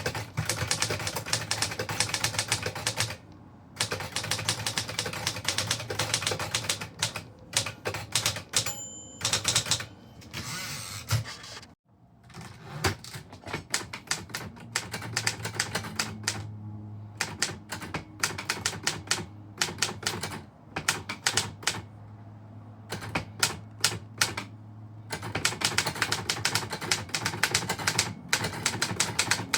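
Typewriter being typed on: runs of rapid key strikes broken by short pauses, with a brief ringing tone about nine seconds in and a sudden break near the middle.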